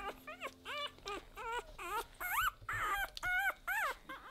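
Newborn Weimaraner puppies crying: a quick run of short, high squeaky whimpers, each rising and falling in pitch, about three a second.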